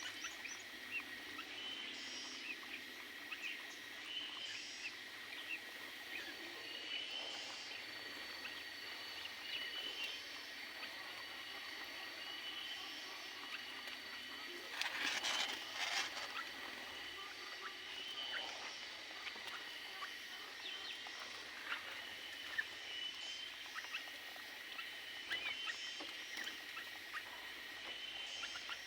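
Small aviary birds making short, repeated high chirps, with a louder rustling burst about halfway through.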